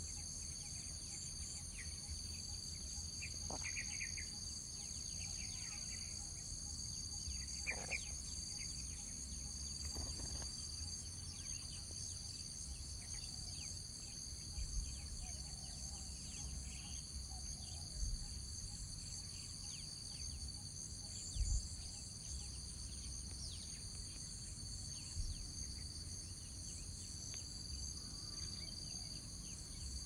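Steady insect chorus, several high shrill drones held at once, over a low rumble with a few short bumps, the loudest a little past the middle. A few brief downward-sliding calls come in the first third.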